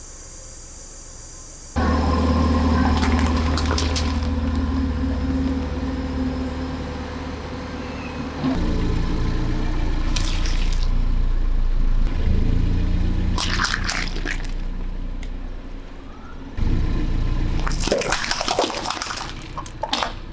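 A car engine runs at low speed with a steady low hum as its tyre rolls over and crushes objects, with sharp cracks and liquid squelches as they give way. The sound changes abruptly twice as the clips cut between crushes.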